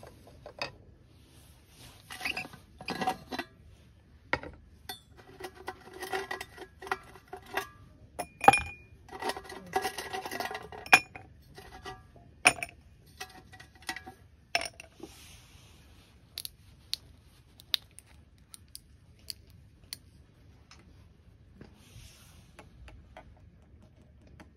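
Ice cubes clinking as they are dropped into a tall glass with plastic tongs: a busy run of sharp clinks with the glass ringing, then sparser single clicks later on.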